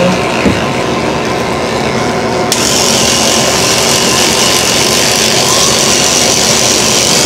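Electric toothbrushes buzzing against teeth as two people brush, over the steady whir of a bathroom exhaust fan. About two and a half seconds in, the sound suddenly turns brighter and hissier and stays that way.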